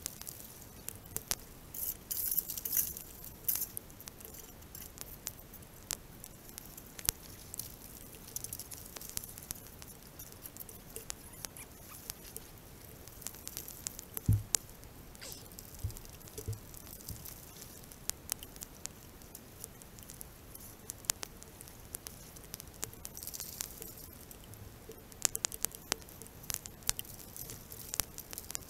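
Rain pattering in a steady wash of water, with scattered sharp drip ticks throughout, as shovelfuls of wet gravel are tipped into a small metal sluice box in a trickling creek, rattling near the start and again near the end. A single dull thump about halfway through.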